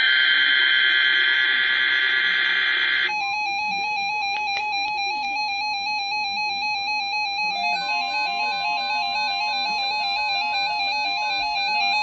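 Electronic music: a bright, buzzy chord for about three seconds, then a beeping synthesizer tune of quickly alternating high notes, with a lower line of notes joining about eight seconds in.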